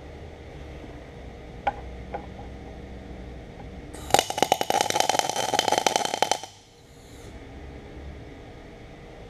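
MIG welder arc crackling for about two and a half seconds as a short weld is laid, then cutting off suddenly. Two light clicks come a couple of seconds before the weld starts.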